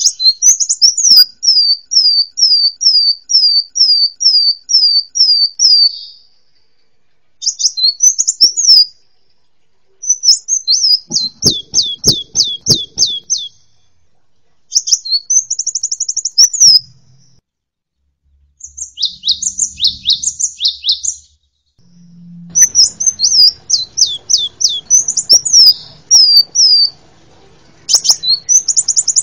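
Songs of a domestic canary, a cinereous tit (gelatik batu) and a sunbird (kolibri) spliced together into a bird-song training mix. It opens with a run of about a dozen sharp, down-slurred chirps, about two a second. Then come short phrases of fast trills and chattering notes with brief pauses between them.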